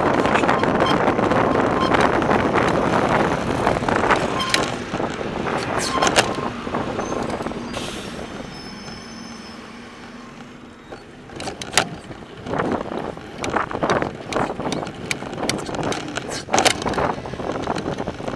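Wind rush on a frame-mounted camera's microphone as a mountain bike rides along a street, with clicks and knocks from the bike. The rush fades about halfway through as the bike slows. Sharp irregular clicks and knocks follow through the second half.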